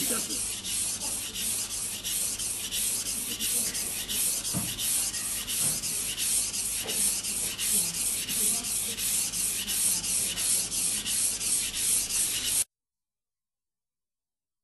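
Kitchen knife blade stroked back and forth on a wet whetstone with a guide rail holding the angle: a steady, even rasping at about three strokes a second that cuts off suddenly near the end. The unchanging stroke sound is the sign of a constant sharpening angle.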